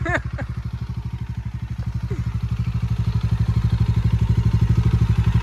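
Bajaj Dominar's single-cylinder engine running with a steady, rapid pulsing beat. It gets gradually louder from about two seconds in as throttle is fed to drive the bogged-down bike out of mud.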